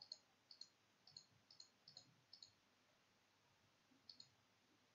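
Faint computer mouse clicking: seven quick double clicks, six in a row in the first two and a half seconds and one more about four seconds in.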